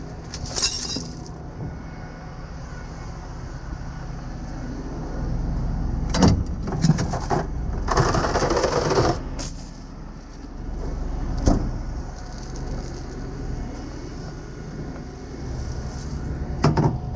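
Steel tow chains clinking and clanking as they are handled, in a few separate bursts with a longer rattle in the middle, over a steady engine hum.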